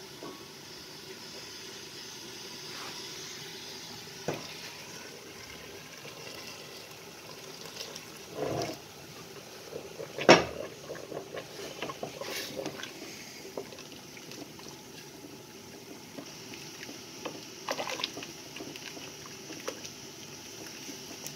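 Potato cooking water poured into a pot of curry base, with a steady liquid rush and bubbling. A few sharp knocks against the pot come in between, the loudest about ten seconds in.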